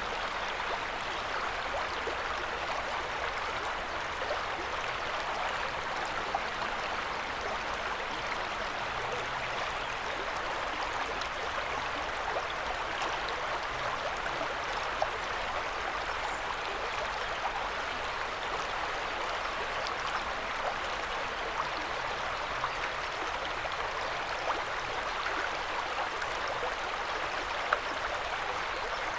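River water flowing: a steady rush of water with small splashes scattered through it.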